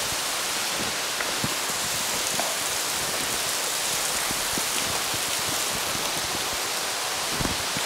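Steady rushing and splashing of an underground waterfall in a mine, with a couple of soft knocks near the end.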